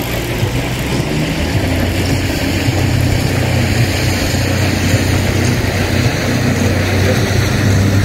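An engine running with a steady low hum that grows gradually louder.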